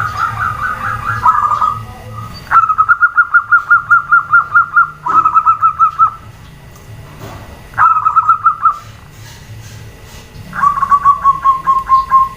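Zebra doves (perkutut) calling: runs of rapid, pulsed cooing notes, about six a second, broken into several bursts with short gaps, the last run falling slightly in pitch.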